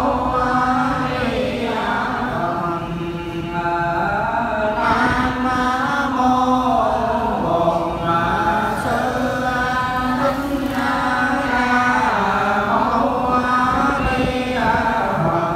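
Vietnamese Buddhist liturgical chanting led by a monk into a microphone, in long, held, sung tones that slide between notes without pause.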